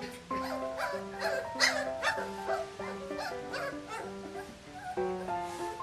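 Three-week-old Sussex Spaniel puppies yipping and whimpering, a string of short high squeals mostly in the first half, the sharpest about a second and a half in, over instrumental background music.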